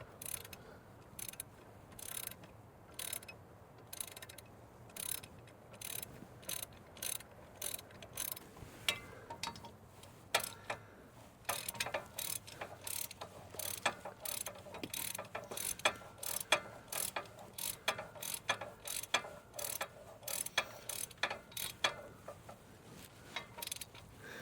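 Hand ratchet wrench clicking in short, irregular runs as a bolt is turned down, with several clicks a second and pauses between strokes.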